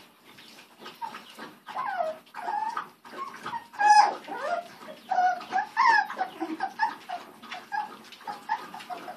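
A litter of young miniature beagle puppies whining and yipping in many short, high calls, starting about a second in and loudest around four and six seconds in.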